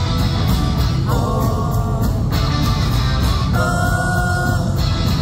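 Live rock band playing loud, with steady drums and guitar under a male singer's voice, which comes in with two sung lines.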